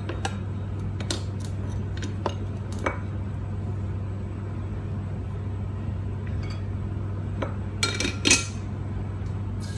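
Metal spatula and plate clinking against a wok in scattered light knocks, with a quick clatter of several louder clinks about eight seconds in, over a steady low hum.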